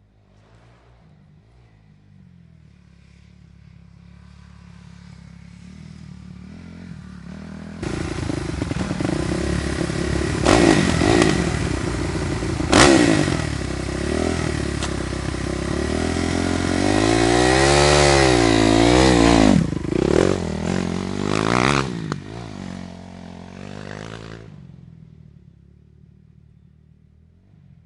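Dirt bike engine coming closer and growing louder, then revving up and down hard, the pitch rising and falling several times, before dropping away and fading out.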